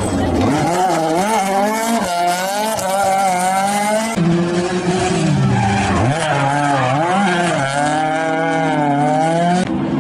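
Opel Kadett rally car's engine revving hard, its pitch climbing and dropping again and again as the driver accelerates, shifts and lifts through corners. The sound changes abruptly about four seconds in, where two passages are joined.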